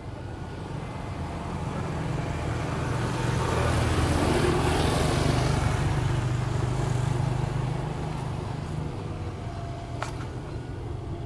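A vehicle passes unseen: a low engine hum swells over about four seconds, peaks midway, then fades away.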